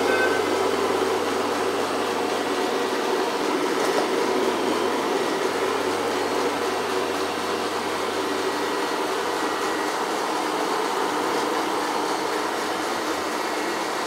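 Shark AV2501S robot vacuum running on a hardwood floor: a steady whir of suction motor and brushes with a low hum in it, getting slightly quieter as the robot drives away. It reads about 70 dB on a meter up close and about 65 a little further off.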